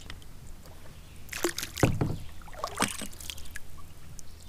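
A hooked smallmouth bass thrashing and splashing at the surface beside a kayak, with the loudest splashes a little under two seconds in and again near three seconds.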